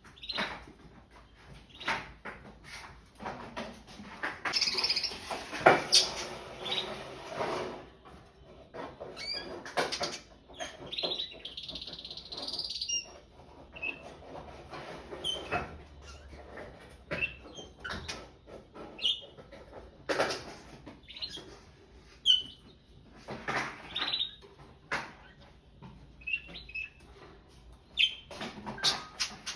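Pet canaries chirping in short, scattered calls, with clicks, rustles and wing flutters of the birds moving about the cage, busiest a few seconds in.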